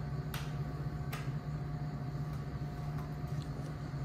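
Steady low room hum, with two faint sharp clicks a little under a second apart near the start as a blade cuts and handles vinyl wrap on a plastic console trim piece.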